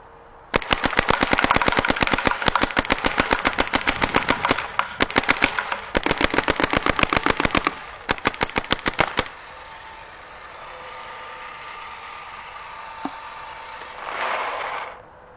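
Planet Eclipse Gmek mechanical paintball marker firing fast strings of sharp shots with a few short breaks, stopping about nine seconds in. Near the end comes a brief rattling rush of paintballs being poured from a pod into the hopper.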